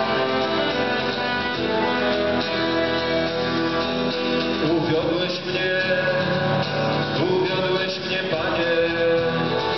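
Live instrumental music from a small band: saxophone and accordion playing long held notes over guitar.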